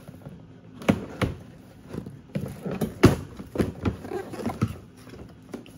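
Cardboard toy box being handled and shifted about, giving a series of light, irregular knocks and taps.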